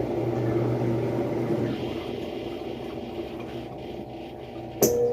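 Brastemp washing machine running its spin with a steady hum that slowly fades, then one sharp knock near the end. The technician hears it as something knocking or breaking underneath, which he suspects comes from the drive mechanism below the tub.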